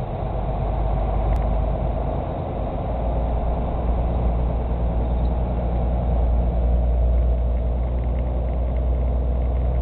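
Vehicle engine and tyre noise heard inside the cab while driving on a snow-covered road: a steady low drone that grows a little louder about three seconds in.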